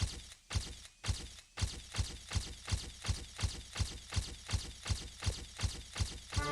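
Electronic intro sound effect: a low thud with a noisy tail, repeated in a steady pulse that quickens from about two beats a second to about two and a half.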